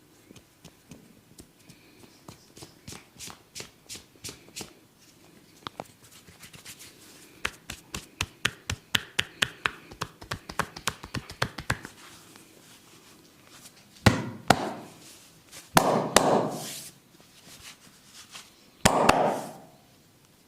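Hands tapping percussively in a massage: a run of quick, sharp taps that speed up to about four or five a second, then three louder, longer noisy strokes, each lasting about a second, near the end.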